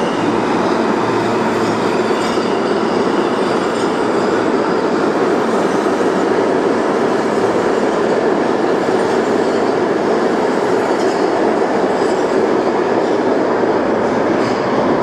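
New York City subway train running along the track, a steady loud noise of wheels on rail with no clear start or stop.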